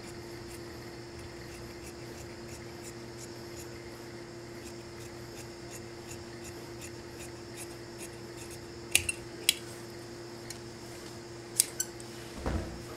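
Large tailor's shears cutting through wool coat fabric: a steady run of light snips, about three a second, then a few sharper clicks of the blades near the end, followed by a soft thump.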